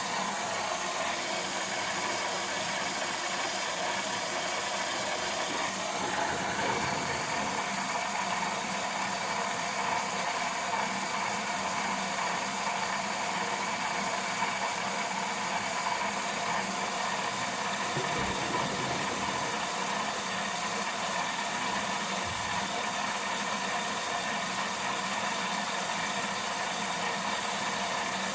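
LG washing machine running: a steady hiss with a low mechanical hum.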